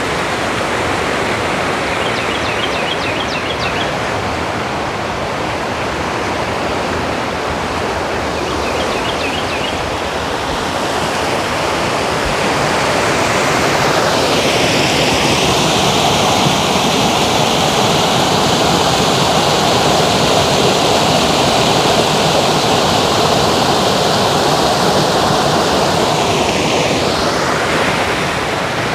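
Waterfall rushing steadily, a dense, even roar of falling water. A few faint high chirps come twice in the first ten seconds, and from about halfway through the rush turns louder and hissier for some thirteen seconds before easing back.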